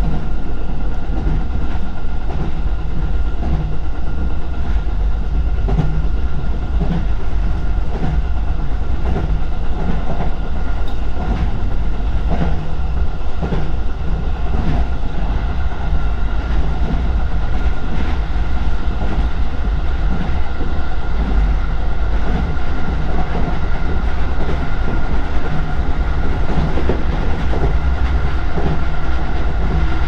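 JR East Joban Line local electric train running, heard from inside the front car. There is a steady low rumble of wheels on the rails, faint scattered clicks, and a thin steady high whine.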